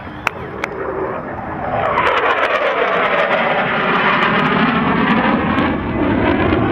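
Fixed-wing aircraft making a low pass: its engine noise swells over about two seconds, holds loud, then fades away near the end.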